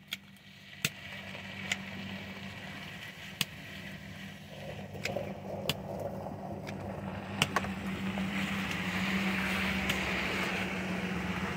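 A road vehicle's engine and tyres as it approaches and drives past, a steady hum that grows louder over several seconds and is loudest near the end. A few small sharp clicks are heard along the way.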